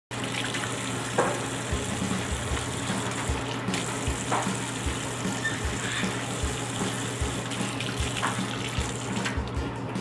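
Water running steadily from a kitchen mixer tap into a stainless steel sink as a hyacinth macaw bathes under the stream, with a few brief splashes.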